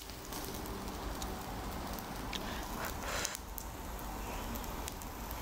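Kimchi fried rice sizzling steadily on a hot stone griddle as it crisps into a crust (nurungji) on the bottom, with a few brief clicks near the middle.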